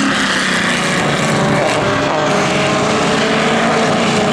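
Several historic touring-car racing engines running hard at high revs, their pitches overlapping and shifting as the cars go by.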